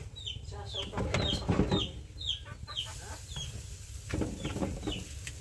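Chickens clucking and peeping, a short high falling call about twice a second, with a louder rough noise about a second and a half in and again about four seconds in.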